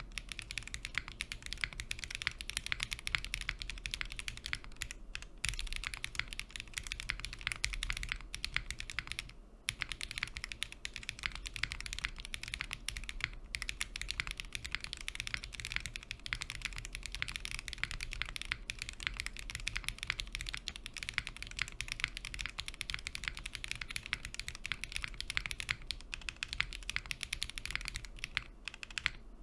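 Fast, continuous typing on a Minerva LX custom mechanical keyboard with lubed Zaku switches on an FR4 plate, in an aluminium case with a copper weight: a dense stream of keystrokes with a brief pause about a third of the way in.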